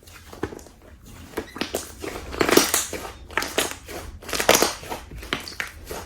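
Slime being squished and pressed by hand: a run of small clicks and pops, with two louder, longer squishes about two and a half and four and a half seconds in.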